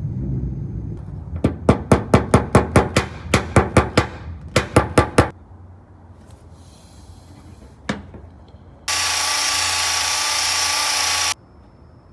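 A rapid run of about twenty sharp taps on the car's body panel, in short quick groups, typical of a tap-down tool and hammer knocking down high spots in paintless dent repair. Near the end a loud, steady whirring hiss runs for about two and a half seconds, then stops abruptly.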